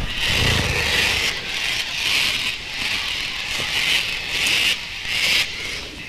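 Experimental noise music: a dense, harsh hiss that cuts in and out abruptly several times, with scraping textures.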